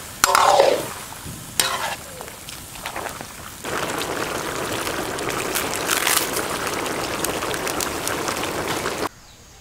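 Mutton frying in oil in a large iron kadai, with a metal ladle stirring and scraping the pan in two falling sweeps in the first two seconds. From about three and a half seconds in, a steady crackling sizzle, which cuts off suddenly near the end.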